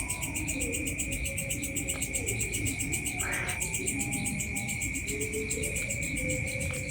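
Night chorus of crickets and other insects: one steady high trill over a faster, higher pulsing chirr, with faint low calls beneath. A brief rustle comes about three seconds in.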